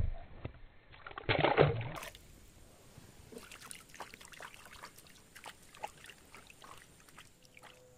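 A loud splash about a second in as a caught fish is released back into the lake, followed by faint scattered drips and ticks.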